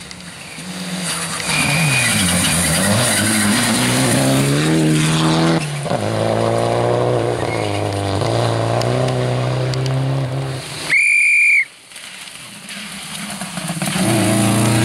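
Rally cars on a wet gravel stage: an engine revs up and down through gear changes as a car approaches and passes, with the spray and hiss of tyres on wet gravel. About eleven seconds in, a short shrill whistle-like tone cuts in. Then a Subaru Impreza rally car's engine builds as it comes up at speed near the end.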